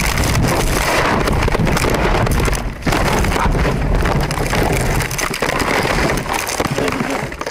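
Car crash from inside the cabin as the car is struck by a truck: a long, loud stretch of crashing, scraping and rattling, with a dense patter of flying glass and debris, that dies away at the very end.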